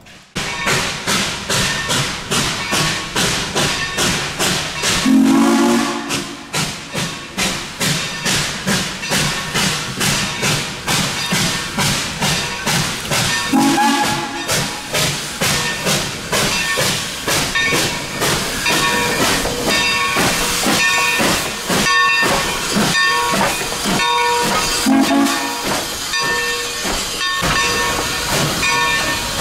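Steam locomotive No. 30, a 2-8-2 Mikado, working past with a steady beat of exhaust chuffs and hissing steam, and three short whistle blasts about five, thirteen and twenty-five seconds in.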